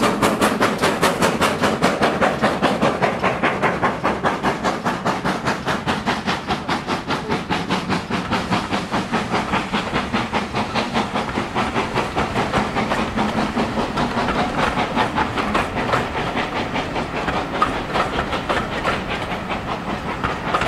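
GWR Manor-class 4-6-0 steam locomotive 7827 Lydham Manor working a passenger train, its exhaust beating in a steady rhythm of about four beats a second, with the coaches rolling past on the rails behind it.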